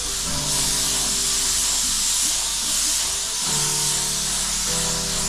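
Spray gun hissing steadily as compressed air and paint are sprayed onto a car panel, with background music of held notes underneath.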